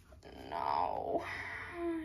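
A person's wordless vocal sound: a pitched cry that falls in pitch, then a short held note near the end.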